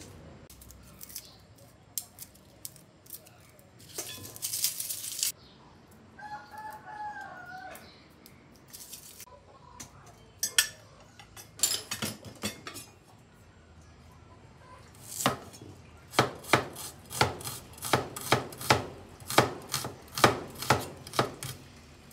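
A cleaver chopping garlic on a wooden cutting board, sharp strikes about three a second in the second half. A rooster crows briefly in the background earlier on.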